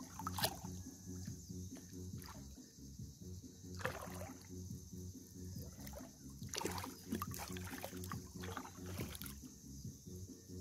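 Hands splashing and sloshing in shallow seawater while groping in the muddy bottom for crabs, a few sharper splashes standing out, over a steady low rumble.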